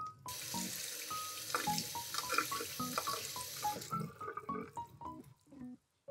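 Kitchen tap running water, rinsing tobiko fish roe in a fine-mesh metal strainer over a stainless-steel sink; the water stops a little over halfway through. Light piano background music plays over it.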